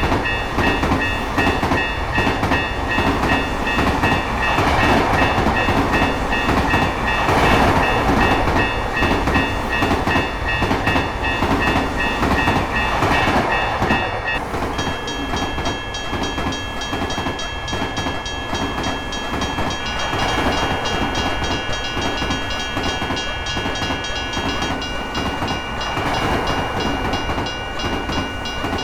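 Railroad crossing warning bells ringing in a steady repeating pulse while a train rumbles past on the rails. About halfway through, the signal changes to a different crossing bell with a faster pulse, and a second tone joins it a few seconds later.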